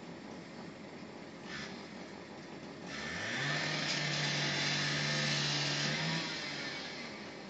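An electric power tool spins up quickly to a steady pitch and runs with a loud harsh hiss for about three seconds, then stops, as it works at the hood of a burnt-out car to open it. A short hiss comes shortly before it.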